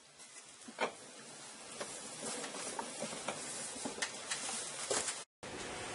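Hand plane shaving a wooden gunstock blank: scratchy cutting strokes with small clicks, growing a little louder after about two seconds and stopping abruptly about five seconds in.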